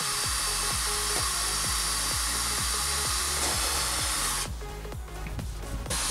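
Cordless drill driving screws into a plastic car bumper, running steadily for about four and a half seconds, stopping, then starting again near the end. Background music with a steady beat plays underneath.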